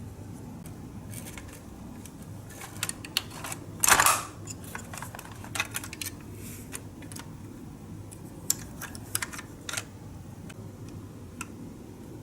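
Scattered light clicks and taps, with a louder scraping clatter about four seconds in, over a steady low hum.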